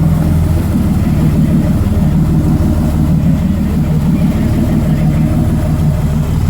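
Engine idling steadily, a low, even hum.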